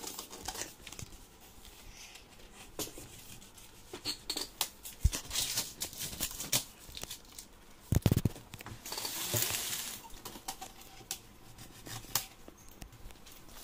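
Handling of a large cardboard TV box while its plastic packing strap is worked at with a cutter: scattered clicks, snips and scrapes. A heavy thump comes about eight seconds in, followed by a short rasping scrape of cardboard.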